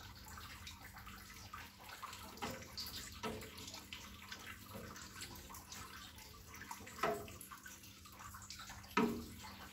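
Liquid chocolate milk pudding mixture sloshing and swirling in a stainless steel pot as it is stirred with a plastic ladle, with a few soft knocks.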